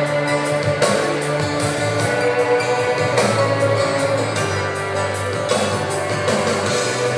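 Music playing: a song with a steady beat.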